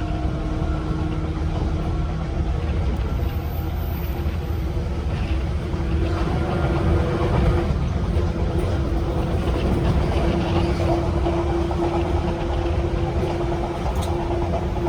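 185 series electric train's MT54 traction motors running at speed, heard aboard the motor car over the rumble of wheels on rail; a steady motor hum grows stronger about six seconds in.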